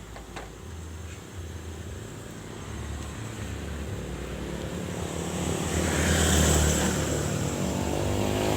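A motor vehicle's engine drones past, growing louder over several seconds and loudest about six seconds in.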